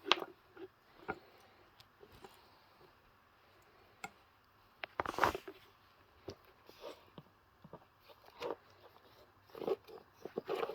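Irregular handling noises: light clicks, taps and rustles from objects being moved by hand, with a longer rustle about five seconds in.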